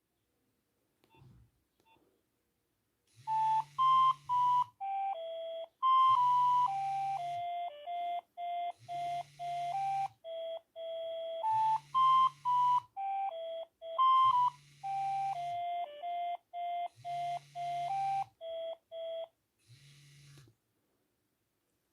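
Nokia 6101 flip phone playing a ringtone: a simple electronic melody of single, clear beeping notes that starts about three seconds in and stops a few seconds before the end, with a low buzz pulsing about every three seconds.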